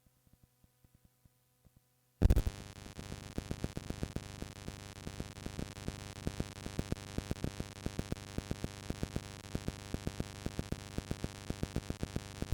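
Cassette tape playback: after faint hum and ticking, a loud hiss of static with dense crackling clicks and a steady hum starts suddenly about two seconds in, then cuts off at the end.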